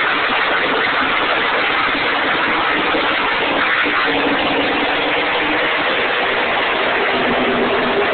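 A pack of race cars running at full throttle around the oval after the green-flag start, their engines blending into a loud, steady noise. From about halfway a few single engine notes stand out and drop in pitch as cars pass.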